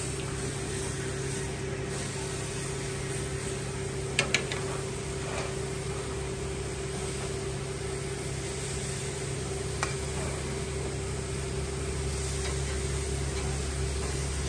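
Metal tongs clicking against steel gas-grill grates a few times, loudest as a double click about four seconds in, as chicken pieces are laid on, over a steady hum and hiss from the lit grill.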